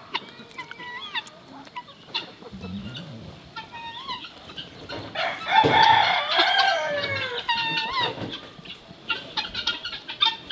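Farmyard poultry calling: a string of short clucks and calls, with a longer, louder run of falling calls about halfway through.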